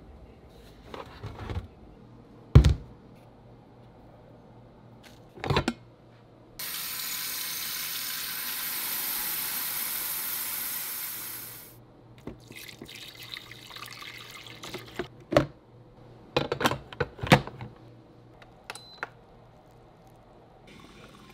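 Kitchen tap running into a glass coffee carafe for about five seconds, filling it. Before and after it come a few sharp knocks and clunks of things being handled, and near the end a brief faint beep.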